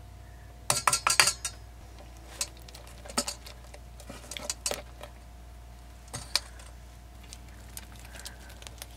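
Slime being stirred and worked in a stainless-steel mixing bowl, with utensils and hands clinking and knocking against the metal. A quick run of clinks comes about a second in, followed by scattered single knocks.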